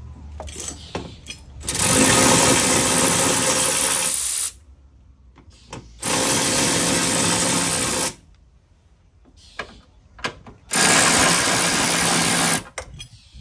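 A power tool runs in three bursts of two to three seconds each, starting and stopping sharply, with a few short knocks between the bursts.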